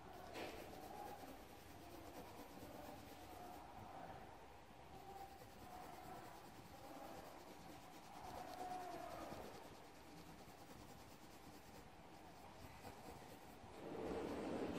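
Faint scratching of a coloured pencil rubbing across paper, growing louder near the end.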